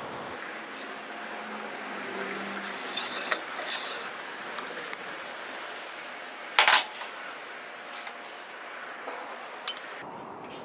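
Metal clinking against metal: a few sharp clinks, the loudest about three seconds in and near the middle, with lighter ticks between, over a steady hiss.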